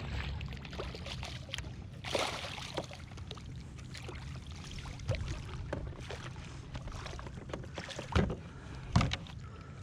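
Water splashing as a landing net scoops a small bass alongside a kayak, loudest about two seconds in, then two knocks near the end.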